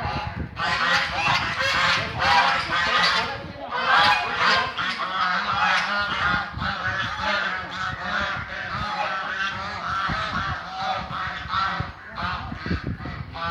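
A flock of ducks calling continuously, many harsh, nasal quacks overlapping one another with no break.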